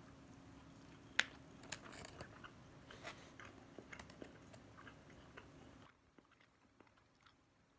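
Faint close-up chewing and mouth sounds of a person eating barbecue dipped in sauce, with scattered small clicks, over a faint steady hum; it all stops about six seconds in.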